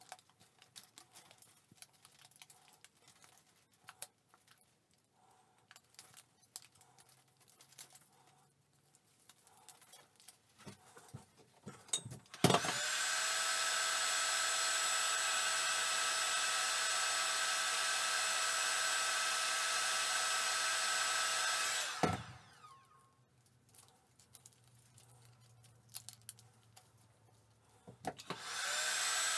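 Hand-held electric heat gun switched on with a click and running with a steady whine and rush of air for about ten seconds while it shrinks a strip of plastic bottle wrapped round a needle file's tang. It is switched off and its whine falls away, then it starts again near the end. Before it runs there are small clicks and rustles as the plastic strip is wound by hand.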